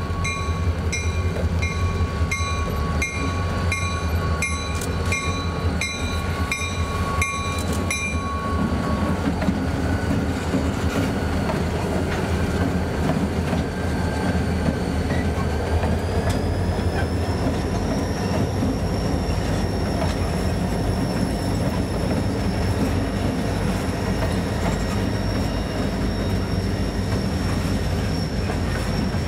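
EMD diesel freight locomotives rumble past while a grade-crossing bell rings about twice a second, stopping about eight seconds in. The freight cars then roll by with clacking wheels and a high steel-wheel squeal that rises and then holds steady from about halfway through.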